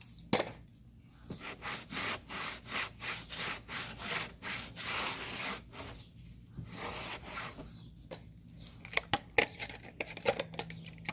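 A cloth rag rubbing back and forth over the car's plastic bumper trim in quick repeated wiping strokes, with a few short pauses, cleaning the surface with alcohol so a Velcro strip will stick.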